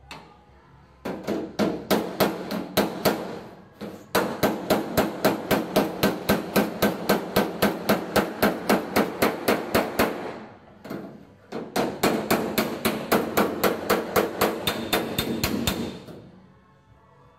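Pick end of a body hammer tapping the welded steel seam of a car's quarter panel against a hand-held dolly, about five quick ringing strikes a second, in three runs with short pauses. This is planishing: stretching the heat-shrunk weld line back up to shape.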